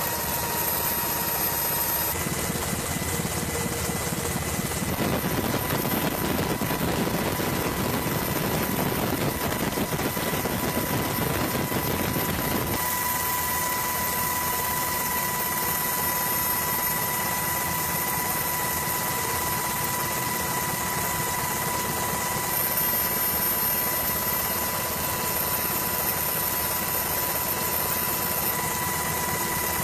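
Helicopter engine and rotor noise heard from aboard the aircraft: a steady, even drone with a high whine on top. Its character changes abruptly three times in the first half.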